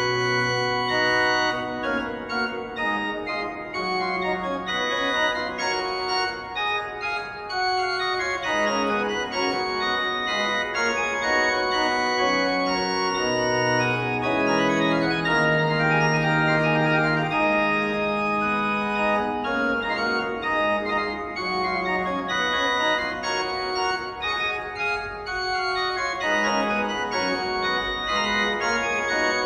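Organ music: slow, held chords changing every second or two, with a melody moving above them.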